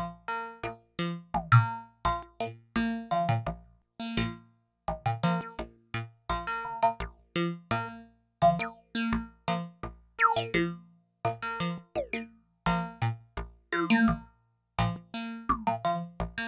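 Make Noise modular synthesizer playing an irregular stream of short, fast-decaying pitched notes, a few fixed pitches recurring over and over, with a couple of quick falling pitch sweeps partway through.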